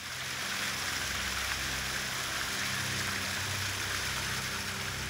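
Steady rush of flowing water, with low sustained tones underneath that shift now and then.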